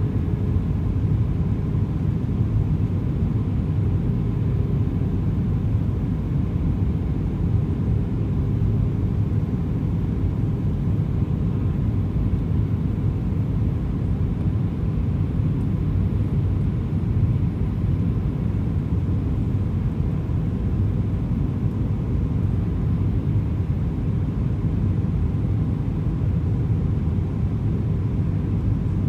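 Steady cabin noise inside an Airbus A320 in descent: a low rumble of the engines and airflow over the fuselage, with a faint steady hum.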